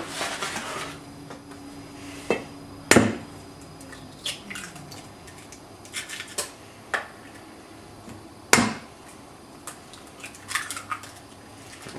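Eggs being cracked one after another on the rim of a stainless steel mixing bowl: a few sharp knocks, the loudest about three seconds in and again about eight and a half seconds in, with lighter taps and clicks between.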